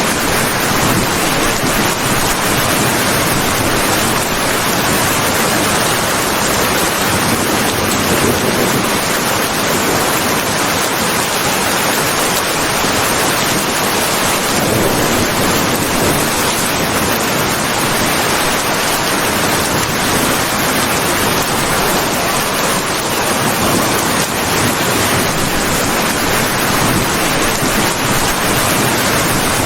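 Heavy rain falling in a steady, even hiss, with no separate drops, rumbles or breaks standing out.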